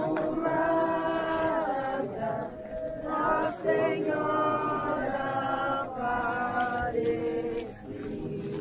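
A group of people singing a devotional hymn together, in slow phrases with long held notes.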